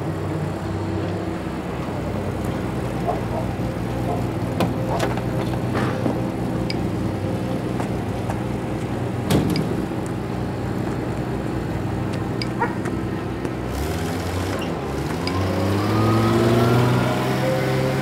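An old canvas-backed truck's engine running steadily at low revs, with a few knocks, the sharpest about halfway through. A few seconds from the end the engine revs up, rising in pitch and growing louder as the truck pulls away.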